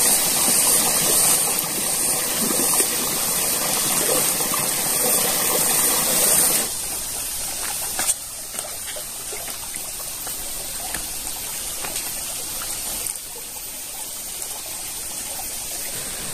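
Shallow rocky stream running and trickling over stones, a steady rush of water. It drops abruptly in level twice, about six and about thirteen seconds in, with a single sharp click around eight seconds.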